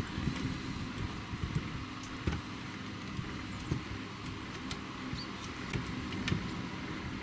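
Light clicks and rustles of fingers handling the wiring, ribbon cables and plastic connectors inside an opened PAT tester's case, a few separate ticks over several seconds, against a steady low background hum.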